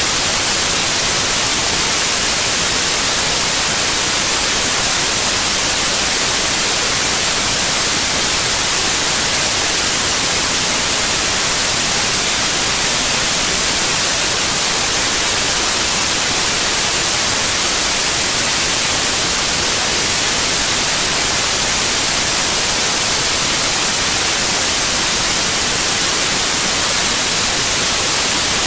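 Loud, steady hiss of electronic static that never changes, brightest in the high treble, with no distinct events in it.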